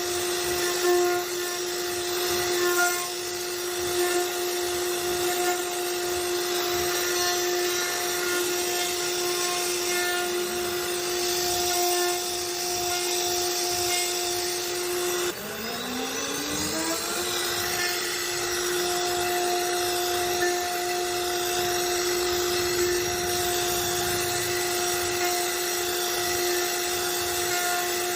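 CNC router spindle whining steadily at high speed while its bit cuts wood, with a rasping hiss of cutting. About fifteen seconds in, the whine drops suddenly in pitch and climbs back up to speed over about two seconds.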